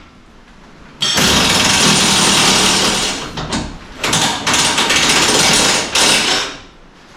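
Impact wrench hammering in reverse on a stuck bolt: one long burst of rapid impacts, then several shorter bursts a second or so later as the bolt resists coming out.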